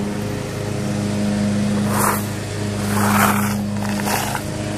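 A steady, low machine hum, like a motor running, holds one pitch throughout. Three short rushes of hissy noise come about two, three and four seconds in.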